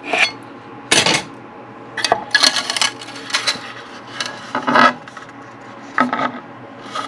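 Large 3D-printed plastic fan housing being lifted off the printer bed and handled: a string of irregular short knocks, clatters and scrapes of hard plastic, over a low steady hum.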